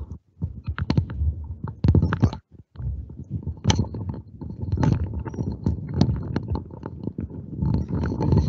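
Irregular knocks, bumps and rustling close to a microphone, with a low rumble under them: handling or movement noise rather than speech.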